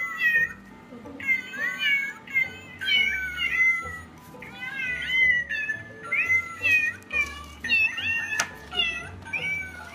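Domestic cat meowing over and over in short calls, each rising and falling in pitch, about two a second.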